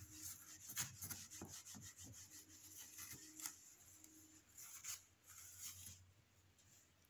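A cloth wiping marker writing off a whiteboard: faint, irregular rubbing strokes that die away about six seconds in, once the board is clean.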